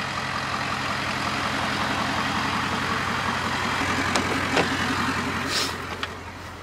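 Ford Super Duty's 6.7 L Power Stroke V8 turbodiesel idling steadily with no exhaust system fitted, the downpipe open under the cab. A few sharp clicks of the door latch and the driver's door opening come about four to five seconds in.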